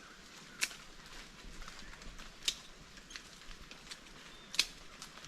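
Pair of hand secateurs snipping: three sharp clicks about two seconds apart, over a faint steady hiss of rainforest.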